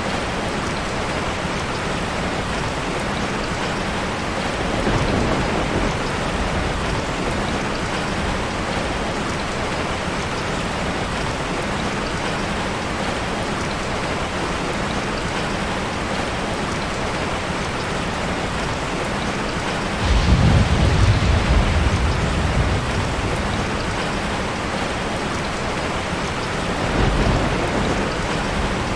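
Steady heavy rain falling, with thunder rumbling three times: a faint roll about five seconds in, the loudest about twenty seconds in lasting a couple of seconds, and another near the end.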